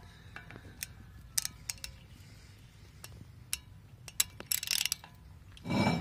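Irregular metallic clicks and clinks of a tool working the brake rotor's T30 Torx retaining screw, with a short rattle a little after four seconds in and a louder burst of noise near the end.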